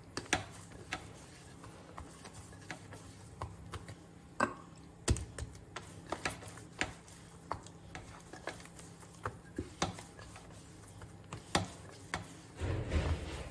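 Hand kneading pearl millet (bajra) flour dough in a steel bowl: irregular clicks and taps of fingers pressing and scraping the dough against the metal, with a longer scrape near the end.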